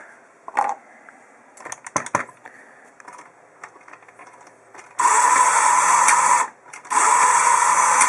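A few small handling clicks, then the Swingline 525 electric three-hole punch's motor and cam drive running with a steady whine. It runs about a second and a half, stops briefly, and starts again near the end.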